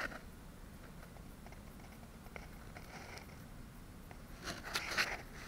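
Light handling noise over quiet room tone: a click at the start, a few faint ticks and rustles, then a short cluster of rustling and scraping about four and a half seconds in.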